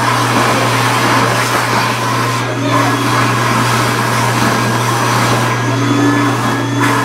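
Build-A-Bear stuffing machine running under its foot pedal, blowing fluff through its tube into a plush toy: a steady, loud blower noise with a low hum underneath.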